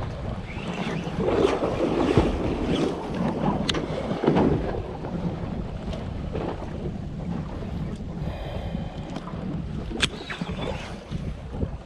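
Wind buffeting the microphone over open sea, with the rush of water around a boat, a few sharp clicks and knocks, and a brief faint whine a little after the middle.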